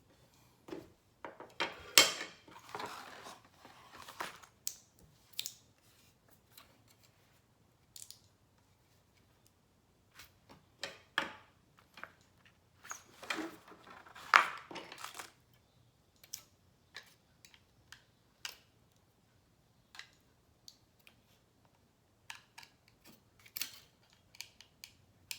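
Close handling noises of a smart video doorbell's casing being worked at to get it open: scattered clicks and taps with short scraping rasps. There is a sharp click about two seconds in, followed by a couple of seconds of scraping, and another run of scrapes around the middle.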